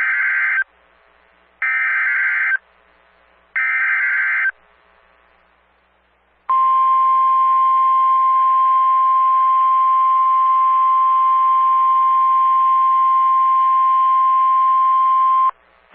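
NOAA Weather Radio alert sequence: three roughly one-second bursts of warbling SAME data tones, the digital header that encodes the warning, a second apart, then after a pause of about two seconds the steady single-pitch warning alarm tone held for about nine seconds. It signals that a warning, here a special marine warning, is about to be read.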